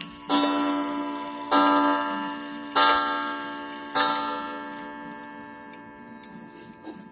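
American Eagle wall clock striking on its coil gong: the hammer hits four times, about a second and a quarter apart. Each strike rings with many overlapping metallic tones and fades, and the last one rings down over about three seconds.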